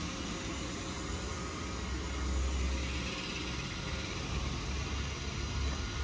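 Robot vacuum cleaner running: a steady whir from its motor and brushes over a low hum.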